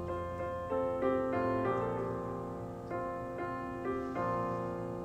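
Slow background piano music: single notes and chords struck one after another, each left to ring and fade.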